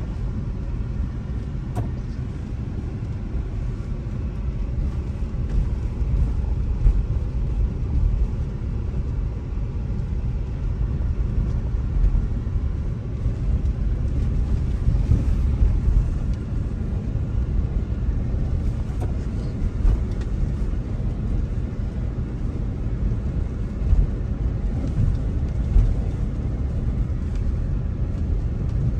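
Steady low rumble of engine and tyre noise inside a moving car's cabin, with a few brief louder bumps.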